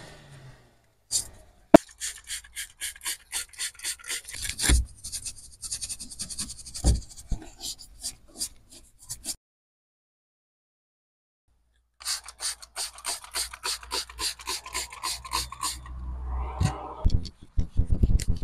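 A soft-bristled detailing brush scrubbing car interior plastic trim and carpet in quick back-and-forth strokes, several a second. The scrubbing drops out to silence for about two seconds midway, then resumes.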